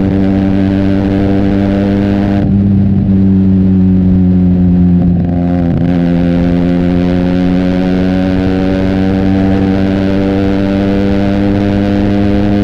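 Benelli TNT 300's parallel-twin engine through an Austin Racing exhaust, running at near-steady revs while riding. The sharper upper part of the exhaust note drops away from about two and a half seconds in and comes back about six seconds in.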